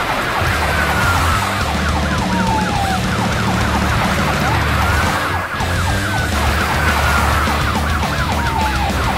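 Police car sirens: a fast yelp warbling up and down several times a second, layered with a slower wail that falls in pitch over a few seconds, rises again about halfway through and falls once more, over a steady low rumble.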